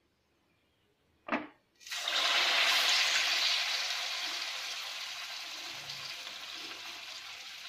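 A batter-coated potato bonda dropped into hot oil: after a short knock, the oil starts sizzling loudly about two seconds in, then slowly dies down.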